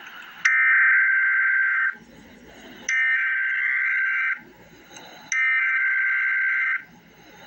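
Emergency Alert System SAME header: three identical bursts of warbling digital data tones, each about a second and a half long with about a second's pause between them. This is the coded header that opens an alert and carries its event type, area and times.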